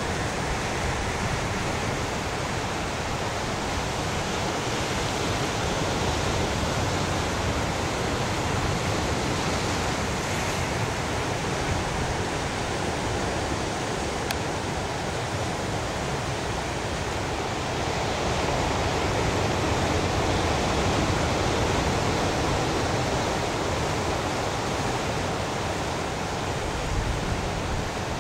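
Ocean surf breaking on a rocky shore: a steady rushing noise that does not let up.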